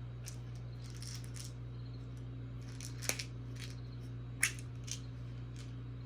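Small plastic robot-kit parts being handled: light rustling and scattered clicks, with sharp clicks about three seconds in and again about a second and a half later. A steady low hum runs underneath.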